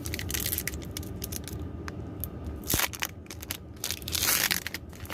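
Foil Pokémon booster pack wrapper crinkling and being torn open: a run of short crackles, with a couple of louder rips in the second half.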